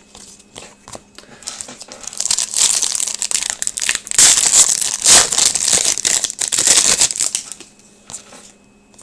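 Plastic wrapper of a hockey card pack being torn open and crinkled in the hands, starting about a second and a half in and loudest near the middle before fading out.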